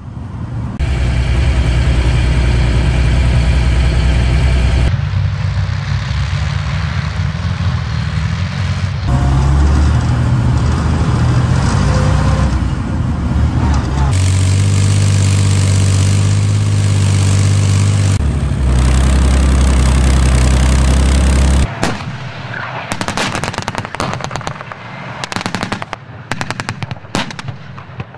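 Tank engine running heavily, heard in several spliced clips that cut in and out. About 22 seconds in it gives way to a rapid, uneven run of sharp bangs like gunfire.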